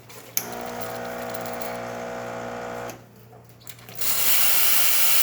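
Lelit Elizabeth espresso machine: a click and a steady buzzing hum for about two and a half seconds, then, about four seconds in, the steam wand opens with a loud, steady hiss of strong steam.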